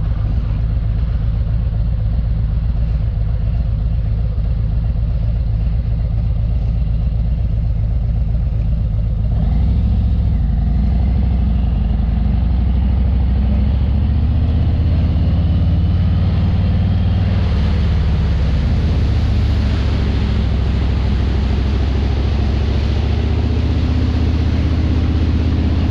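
Harley-Davidson Ultra Limited's V-twin engine running steadily while riding, with a deep exhaust note. About nine seconds in the note deepens and gets a little louder, and from about seventeen seconds a hiss rises over it.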